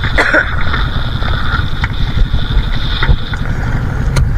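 Outrigger fishing boat's engine running steadily under way, with water splashing along the hull and a couple of short knocks.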